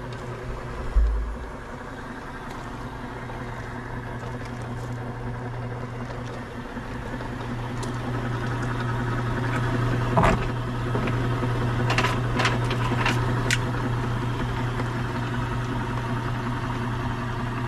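Homemade chicken plucker's electric motor running steadily, driving the washing-machine drum's finned bottom plate through a V-belt, with a low hum. There is a thump about a second in and a few sharp clicks later on.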